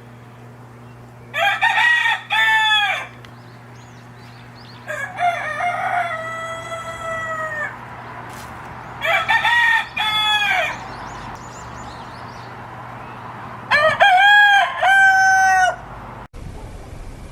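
A rooster crowing four times, a few seconds apart, each crow a run of pitched notes with the last one held; a steady low hum underneath.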